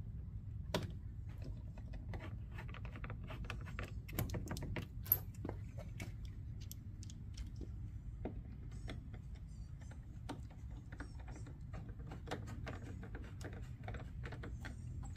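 Light, irregular clicks and taps of a hand screwdriver and plastic trim as screws are driven to fasten the panel above a van's front grille, with one sharper click about five seconds in, over a low steady hum.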